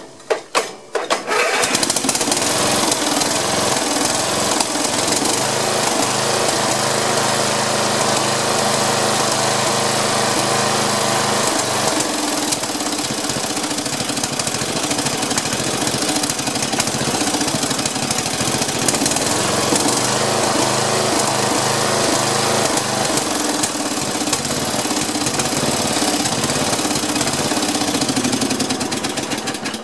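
Snapper SR1230 rear-engine rider's Briggs & Stratton engine cranking and catching in the first second or so, then running steadily. It keeps running with no backfire, the sign that the new Briggs & Stratton flywheel key is holding the timing where cheaper keys had sheared.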